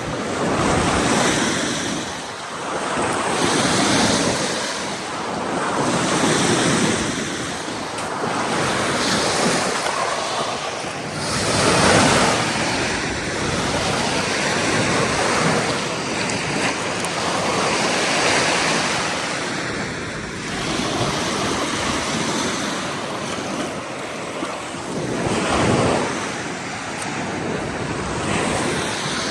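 Ocean surf breaking and washing on a beach, the rush of water swelling and fading every few seconds, with wind on the microphone.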